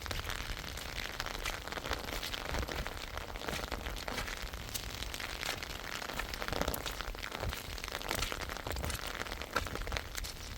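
Rain falling steadily, a dense patter of many small taps over a low rumble.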